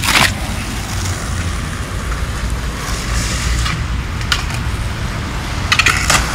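Skateboard wheels rolling on rough concrete, a steady gritty rumble, with a sharp click about two-thirds of the way through and a few more clicks near the end.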